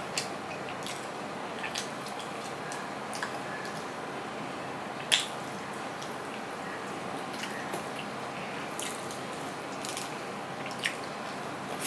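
Close-up eating sounds: fingers mashing and mixing rice with curry on a steel plate, with chewing and mouth smacks. Soft wet squishes and scattered sharp clicks, one louder smack about five seconds in, over a steady background hiss.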